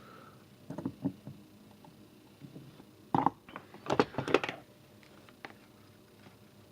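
Small handling noises: a few light clicks around a second in, then a louder cluster of clicks and rustles from about three to four and a half seconds in, as stripped wire and small banana-plug parts are handled.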